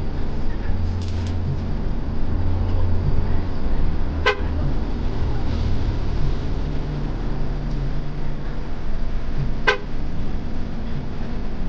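Hyundai Universe Xpress Prime bus engine running with a steady low drone, heard from inside the bus, and two short horn toots, about four and nine and a half seconds in.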